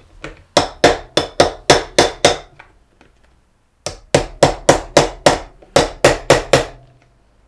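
Quick light hammer taps driving the trigger pin into a tight Kranzle M2000 trigger-gun housing: a run of about seven taps, a pause of over a second, then a run of about a dozen more, roughly four a second.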